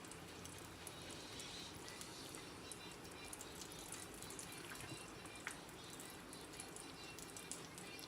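Hot oil frying a stuffed taco: a faint steady sizzle with scattered, irregular pops and crackles.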